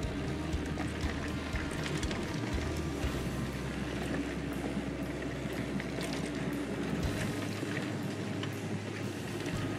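Mountain bike riding down a dirt forest trail: a steady rushing noise of tyres and air, with frequent small rattles and knocks from the bike over the rough ground.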